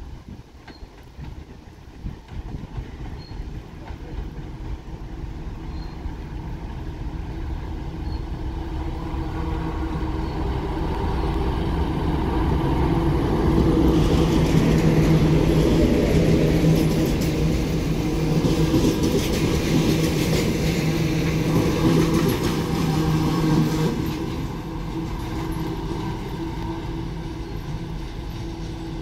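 TEP70 diesel locomotive hauling a passenger train as it approaches and passes close by. The diesel engine's steady drone grows louder until the locomotive goes past about halfway through. The coaches then rumble by on the rails for several seconds, and the sound drops off as the train moves away.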